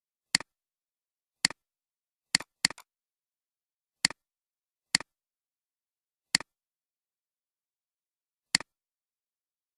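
Computer mouse clicking: eight sharp clicks at irregular intervals, each a quick press and release, with dead silence between.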